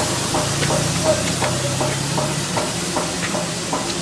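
Steady hiss of steam escaping from a Darjeeling Himalayan Railway narrow-gauge steam locomotive in its shed, with a low hum for the first two seconds or so and a rapid run of short high chirps over it.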